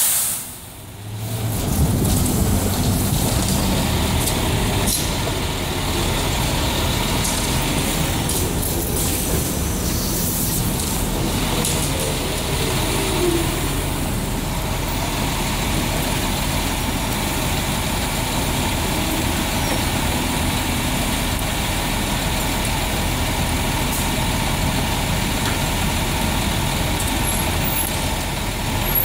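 Heavy utility truck's engine idling steadily, mixed with the rumble of street traffic.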